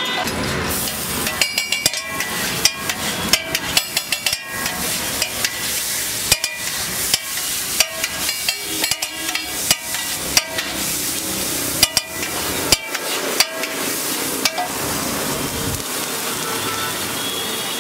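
A long knife blade chopping and scraping on a hot iron griddle, sharp metal-on-metal clacks in quick irregular runs over the steady sizzle of chopped ingredients frying. The clacking stops about two seconds before the end, leaving the sizzle.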